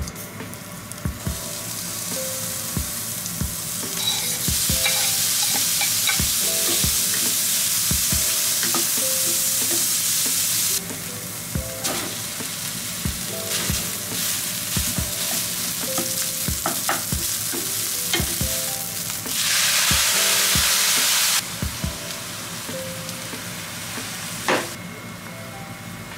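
Food sizzling in a hot frying pan, with scattered clicks and taps of a utensil against the pan. The sizzle comes in two loud stretches, a long one from about four seconds in and a short one near the end, each starting and cutting off abruptly. Soft background music plays underneath.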